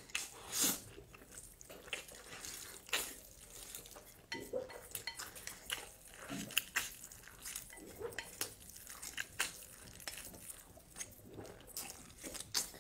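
Slurping and chewing mouthfuls of noodles taken up with chopsticks: wet sucking and smacking sounds with many irregular sharp clicks.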